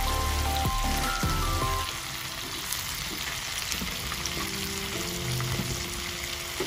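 Oil sizzling in a frying pan as a spatula sets fried tilapia into the tomato and garlic sauce, with background music playing over it, louder for the first two seconds.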